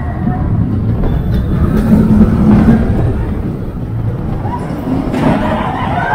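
Expedition Everest roller coaster train running along its track: a steady low rumble of wheels on rail, growing louder and brighter near the end as the train heads into a tunnel.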